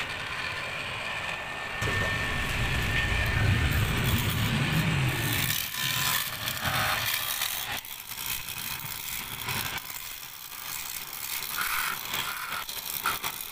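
Homemade 12-volt DC motor blower running. A low rumble builds for a few seconds and drops away about five and a half seconds in, followed by rattling and clicks.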